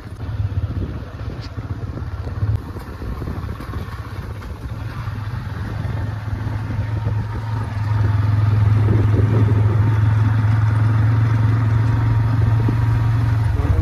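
Motorcycle ridden along a dirt track: engine running under a low rumble of wind on the microphone. It grows louder about halfway through.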